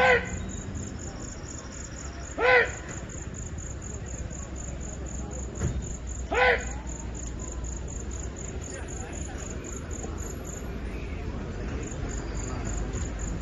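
Crickets chirping in a rapid, even pulse, over a low steady rumble. Three short, loud calls that rise and fall in pitch cut through: one at the start, one about two and a half seconds in and one about six and a half seconds in.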